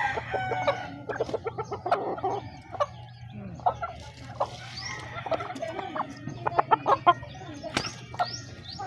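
Chickens clucking close by, over the sloshing and splashing of water in a washbasin as clothes are hand-washed and water is poured in with a dipper. There are many short knocks and splashes, the loudest clustered a little past the middle.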